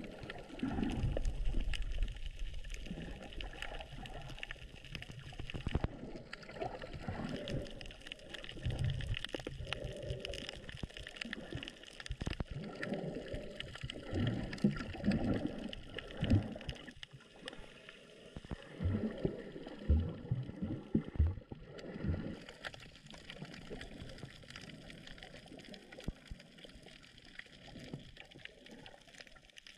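Water sloshing and gurgling, heard muffled as if by a camera held in or at the surface of the sea, with irregular low swells every second or two.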